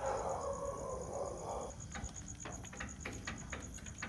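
Crickets chirping in a steady, rapid pulse. A brief rush of noise is heard in the first second or two, and scattered light clicks and knocks follow it.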